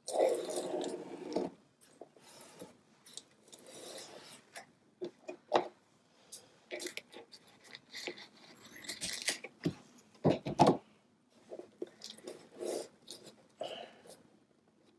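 Brown paper packing tape pulled off the roll with a rasping tear at the start, then cut with scissors and smoothed down by hand over cardboard, with rustling, clicks and a few sharp knocks as the tools and boards are handled.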